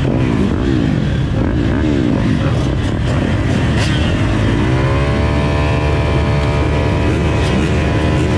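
Motocross bike engine revving in quick up-and-down surges, then climbing about four seconds in to a high, steady pitch held on the throttle.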